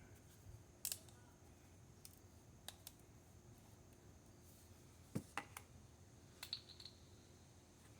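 Near silence, broken by a few faint, scattered clicks of small objects being handled.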